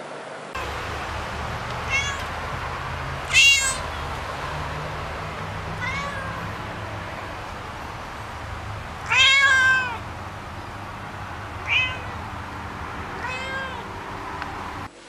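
A cat meowing repeatedly, about six meows with a low background hum. The loudest are a sharp meow about three and a half seconds in and a long drawn-out one about nine seconds in.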